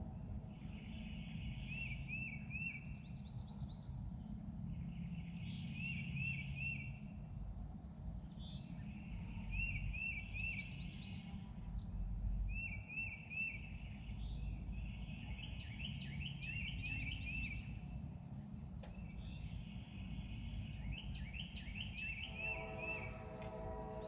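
Outdoor ambience: a steady high-pitched insect drone, with a songbird repeating a short phrase of three or four quick notes about every three to four seconds over a low rumble.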